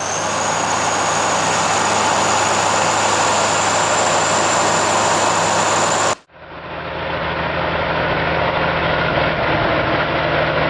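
Heavy vehicle engine running steadily with a high whine on top. About six seconds in it cuts off suddenly, and another heavy engine running steadily fades in.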